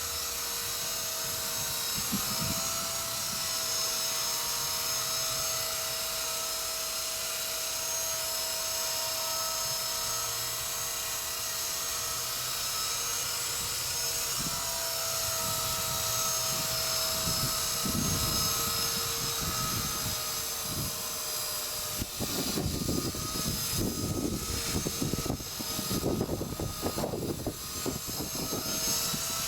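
Walkera V120D02S mini RC helicopter hovering, its electric motor and rotors giving a steady whine made of several fixed tones. About three quarters of the way through, irregular gusts of wind start buffeting the microphone.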